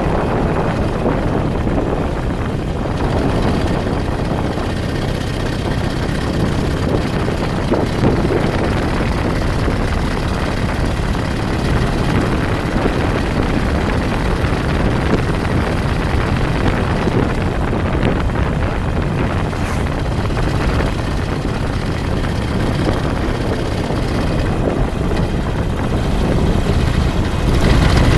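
Steady rumble of a moving vehicle, with wind buffeting the microphone, swelling slightly near the end.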